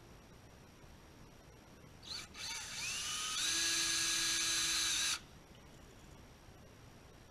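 Cordless drill motor running. A short blip about two seconds in, then it speeds up with a rising whine, runs steadily for about two seconds and stops suddenly.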